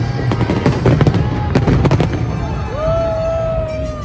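Large aerial fireworks display: rapid bangs and crackles over a deep rumble, thinning out after about two seconds. Near the end comes a long held cheer from someone in the crowd.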